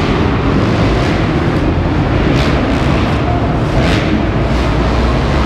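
Engines of several motocross dirt bikes racing around an indoor dirt track, a loud, steady noise inside a large arena hall.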